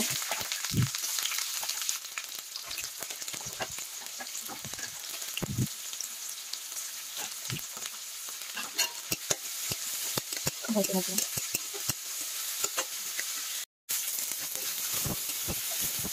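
Chopped onions, tomato and green chilli sizzling in hot oil in a kadai, as the base for aloo bharta. A steel spatula scrapes and clicks against the pan as they are stirred. The sound cuts out briefly twice near the end.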